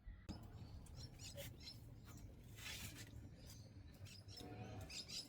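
Near silence: faint background ambience with a low hum, scattered faint ticks and a few faint chirps.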